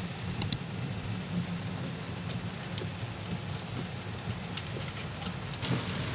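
Rain pattering on a car windshield over steady road rumble inside the cabin while driving on a wet highway, with two sharp ticks about half a second in.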